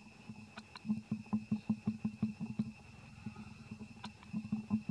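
Baby macaque suckling at its mother's nipple: rapid runs of soft, low sucking pulses, about six a second, pausing briefly in the middle and starting again, with a few small clicks of the mouth.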